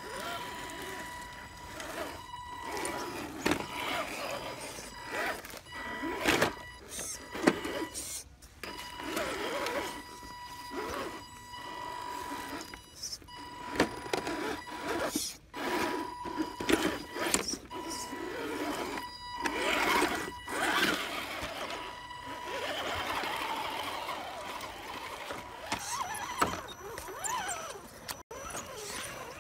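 Axial SCX10 scale RC crawler's electric motor and gear drivetrain running at low speed over rocks and roots: a steady high whine that stops and starts, with scattered knocks and clatter of tires and chassis against rock and wood.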